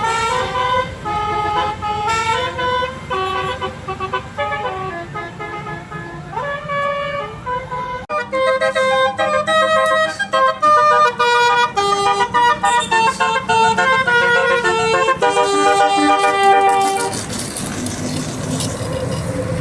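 Bus 'telolet basuri' multi-tone air horn playing quick melodic runs of stepping notes, in two stretches with a sudden break about eight seconds in. The horn stops about 17 seconds in, leaving a steady noise.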